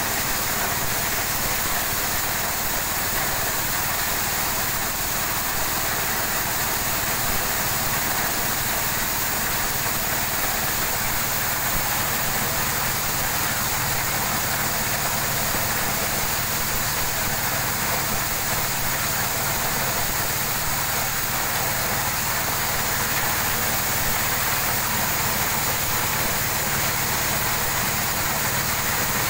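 Engine-driven corn sheller running steadily: a small stationary engine with the threshing drum turning, under a continuous hiss of shelled corn kernels pouring out.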